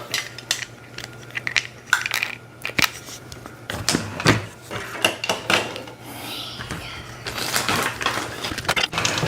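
Hard plastic toy workbench parts clattering and clicking as they are handled and fitted together, in irregular knocks and taps.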